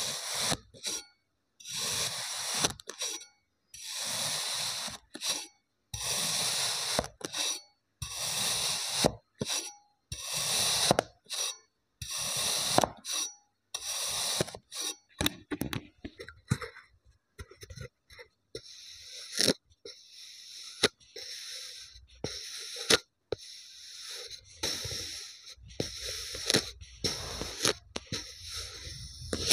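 Kinetic sand being sliced with a wavy metal crinkle cutter, heard close up through a microphone clipped to the tool: a gritty crunch with each push of the blade, about one a second for the first half. After that the sand is crumbled and scraped apart with a plastic stick, a denser, more broken-up crunching, with a lower sound joining in near the end.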